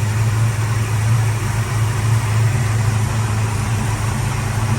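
Valiant VH Charger engine idling steadily, warm, on its first run after about a month of sitting.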